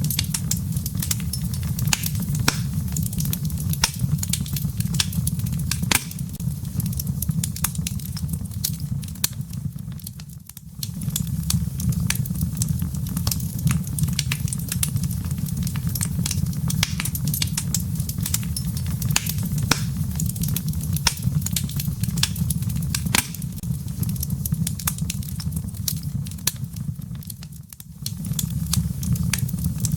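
Wood fire in a fireplace crackling, with frequent sharp pops and snaps over a low, steady rumble of burning. The sound briefly drops away about a third of the way in and again near the end.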